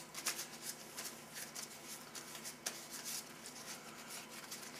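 Moist towelette rubbed and crumpled between the hands as they are wiped clean, a run of soft, irregular rustles and crinkles.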